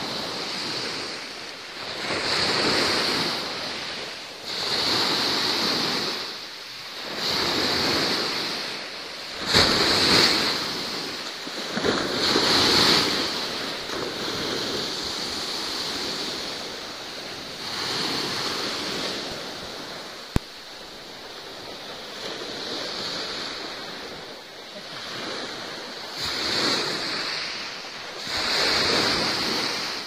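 Sea waves washing in, the surf swelling and ebbing every few seconds. A single sharp click comes about two-thirds of the way through.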